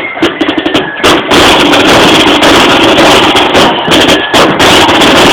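Marching flute band playing. Side drums tap quick strokes, then about a second in the whole band comes in loud with flutes, side drums and bass drum.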